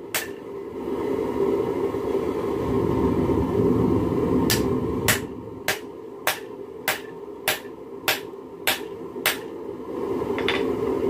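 Hand hammer striking a red-hot railroad spike on an anvil while forging a knife blade. One blow at the start, then after a pause of about four seconds a regular run of nine blows, a little under two a second, over a steady low rushing noise.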